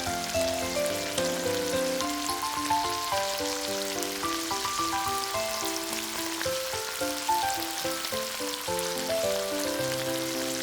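Food frying in hot oil, a steady sizzle, with background music playing over it.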